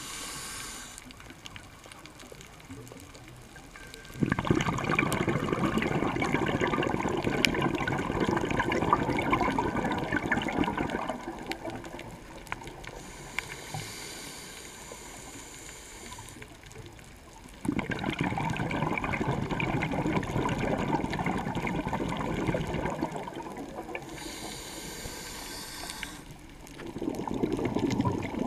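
A scuba diver breathing underwater: three long rushes of exhaled bubbles from the regulator, each lasting several seconds, with quieter hissing inhalations between them.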